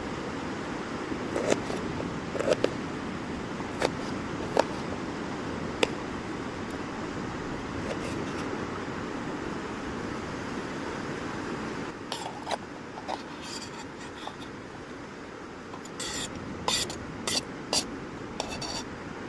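Small knife slicing shallots on a metal lid, giving sharp, scattered taps of the blade on the metal, then a quick cluster of clicks and scrapes near the end as the slices are scraped off the lid. A steady rush of surf runs underneath.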